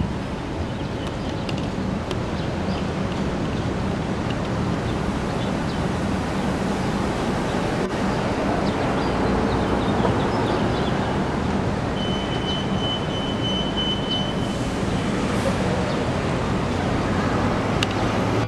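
City transit bus engine idling with a steady low hum over constant street traffic noise. A thin steady high tone sounds for about two and a half seconds, starting about twelve seconds in.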